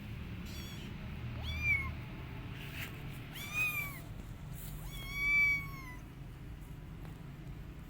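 Young kitten meowing, about four high-pitched cries a second or two apart, each rising then falling in pitch; the last is the longest and loudest. These are the upset cries of a kitten whose mother has left.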